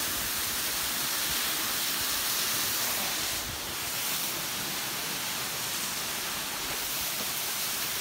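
Waterfall cascading down a rock face into a pool: a steady rushing hiss of falling water, dipping briefly about three and a half seconds in.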